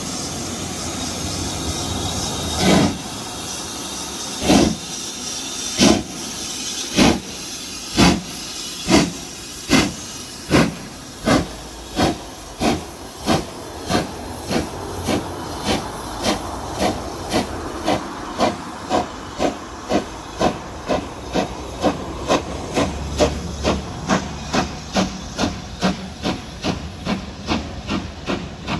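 Steam locomotive pulling away: a steady hiss of steam, then exhaust chuffs starting about three seconds in and coming ever faster, from nearly two seconds apart to about two a second, as it gathers speed.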